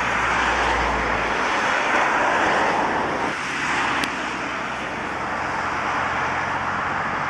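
Airbus A340-600's four Rolls-Royce Trent 500 turbofans running at low taxi power as the airliner taxis close by, a steady jet roar with a deeper rumble in the first second or so.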